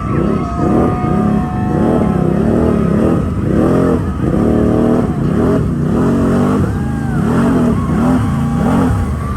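ATV engines revving hard and repeatedly, the pitch rising and falling again and again as the throttle is worked, typical of ATVs driving through deep mud.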